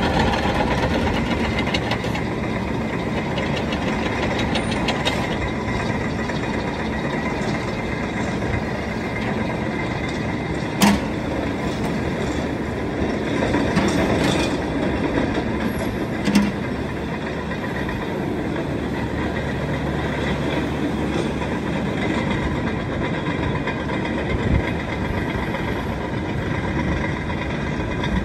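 Volvo EC55D mini excavator's diesel engine running steadily while its hydraulics move the arm and swing the upper structure. Two short, sharp knocks stand out, one about a third of the way through and one a little after halfway.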